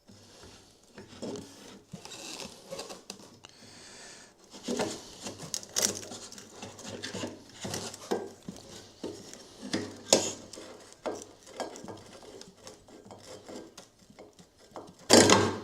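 Hands handling and fitting small parts: scattered clicks, knocks and rubbing, with a louder clatter just before the end.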